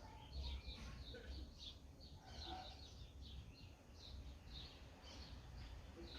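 Birds chirping faintly: many short, high chirps, about three a second, over a faint low rumble.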